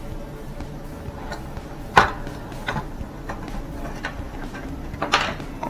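Sharp clicks and taps of small tablet parts and tools being handled during disassembly, the loudest about two seconds in and another cluster near five seconds, over a low steady hum.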